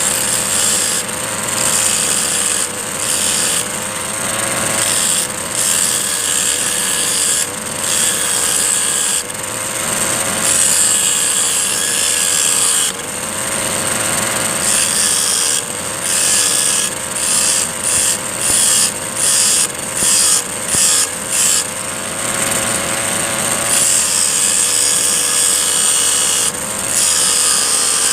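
Two-stroke brush cutter engine running steadily, driving an abrasive disc that grinds a steel file. The bright grinding hiss cuts in and out as the steel is pressed to the disc and lifted, in quick pulses about twice a second roughly two-thirds of the way through.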